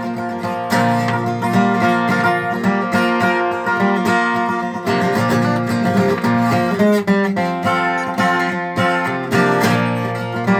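Acoustic guitar strumming chords in an instrumental break of a country gospel song, with a quick run of notes about seven seconds in.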